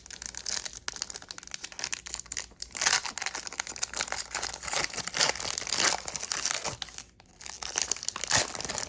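A foil trading-card pack wrapper being torn open and crinkled by hand, with continuous crackling and a short pause about seven seconds in.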